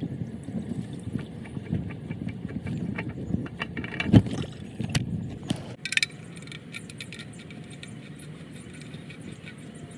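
Tools and metal parts clinking and clattering during work under a car for an oil change, with a sharp knock about four seconds in and a brief clatter a little before six seconds.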